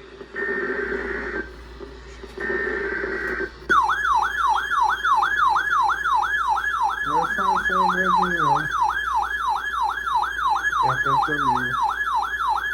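Two short bursts of EAS digital header tones (a warbling two-tone data signal), followed by a loud electronic siren-like alert tone that sweeps rapidly up and down about three times a second, marking the start of a new emergency alert.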